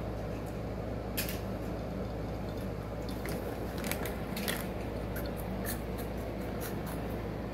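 A few faint crunches and clicks of someone chewing Flaming Hot Cheetos, over a steady low room hum.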